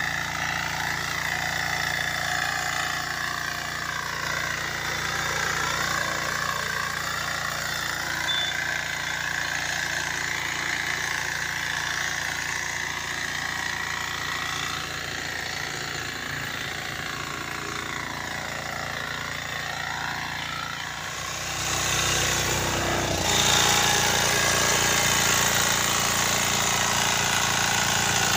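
12 HP Kama single-cylinder diesel engine of a walk-behind power weeder running steadily under load as its rotary tines churn soil. It grows louder about three-quarters of the way through.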